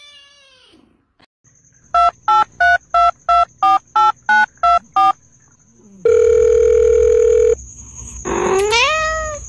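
Touch-tone telephone keypad beeps: ten short dialing tones, about three a second, followed by a steady tone lasting about a second and a half. Near the end a short pitched call rises in pitch.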